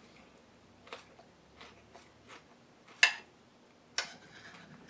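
A few faint clicks while eating, then two sharp clinks about a second apart near the end: a metal fork striking a ceramic plate.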